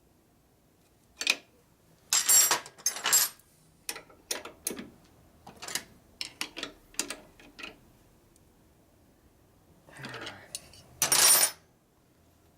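Metal parts and hand tools clinking, rattling and scraping in short, irregular bursts during work on a motorcycle chassis, with the loudest rattles about two seconds in and again near the end.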